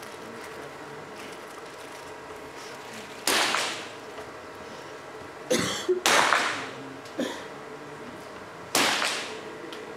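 .22 free pistol shots fired at irregular intervals, each a sharp crack followed by a short echo in the range hall. There are five shots: four loud ones and a fainter one a little after two-thirds of the way through.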